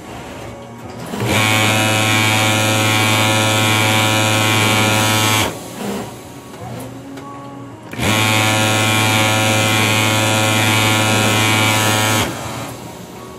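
Pegasus industrial overlock sewing machine running at a steady speed in two runs of about four seconds each, starting and stopping abruptly, with a quieter pause between them as the fabric is fed.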